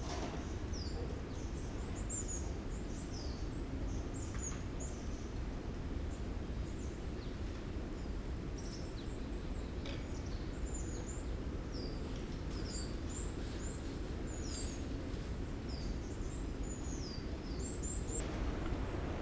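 Small birds making many short, high chirps and twitters, one after another throughout, over a steady low background rumble.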